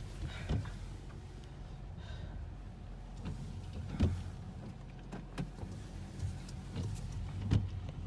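Low, steady rumble of a car heard from inside the cabin, with a few soft knocks.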